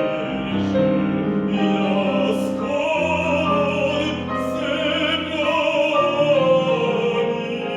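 A male classical singer sings a Russian folk song in an art-song arrangement, in an operatic style with vibrato on long held notes, to piano accompaniment. A few hissed consonants cut through the line.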